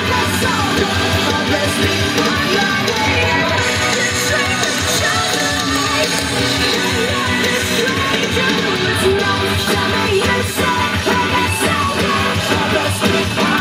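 Loud rock music with vocals and a steady beat.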